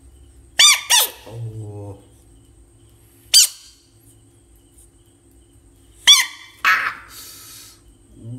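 Frogs giving short, sharp screams, typical distress calls of frogs disturbed by a hand coming close. There are five loud calls: a pair about a second in, one in the middle and a pair near the end, with a lower buzzing croak just after the first pair.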